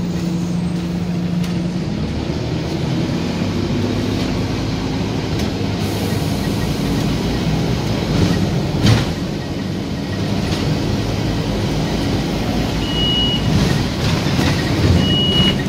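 Bus engine and road noise heard from inside the moving bus, with the engine note changing about two seconds in and a single knock about nine seconds in. Near the end the stop-request bell beeps twice in short, high tones as passengers press it.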